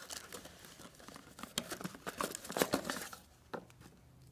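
Cardboard and plastic packaging rustling and crinkling in quick crackly bursts as hands pull accessories out of a product box, with one sharper click a little after three seconds in.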